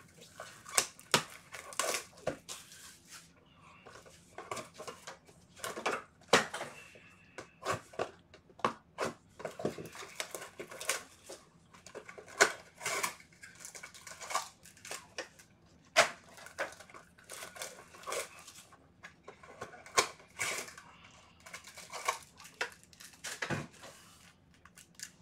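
Gloved hands opening a Bowman Chrome baseball hobby box and its foil trading-card packs: irregular crinkling and tearing of the wrappers, with rustling and sharp little clicks as the cards are handled.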